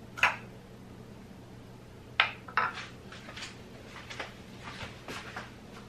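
Utensils clinking against a dish: one sharp clink at the start, two more close together about two seconds in, then several lighter taps and clicks.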